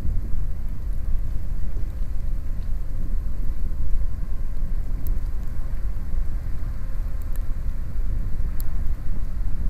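Steady low rumble of a large car ferry's diesel engines as it passes under way, with a faint machinery hum and wind buffeting the microphone.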